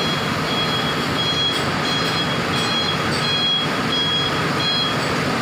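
Diesel engine of a Mercedes-Benz coach idling with a steady rumble, and over it a high electronic beep, like a reversing alarm, repeating about twice a second.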